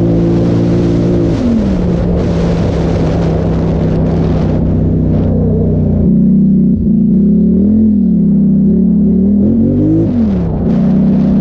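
2017 Polaris Sportsman XP 1000 ATV's twin-cylinder engine running under way: the engine note drops about a second in and holds steady, then rises and falls with the throttle in the second half, dipping sharply near the end before picking up again. A rushing noise rides over it in the first half.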